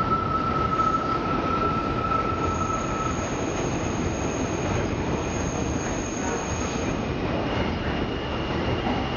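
Alstom R160A-2 subway train rolling around a tight elevated curve, its steel wheels squealing against the rail over a steady rumble. The squeal moves from one high tone to a thinner, higher one about three seconds in, then to a lower tone near the end.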